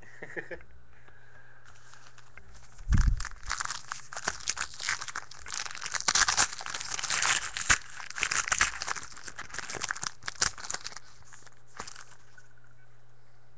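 Trading-card pack wrapper being torn open and crinkled, with a thump about three seconds in, then about eight seconds of crackly tearing and crinkling.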